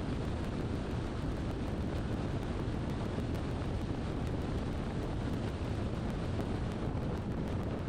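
Steady road and wind noise of a car driving at speed: an even low rumble with a hiss over it, unchanging throughout.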